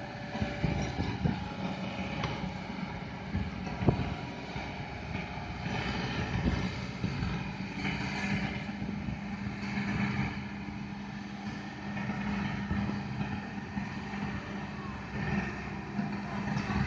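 Hydraulic excavator's diesel engine running steadily, with a sharp knock about four seconds in and a few lighter clanks.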